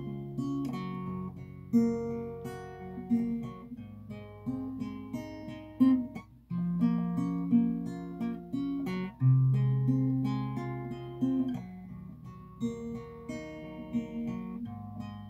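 Acoustic guitar playing an instrumental passage: a steady run of chords and single notes over moving bass notes, with no singing.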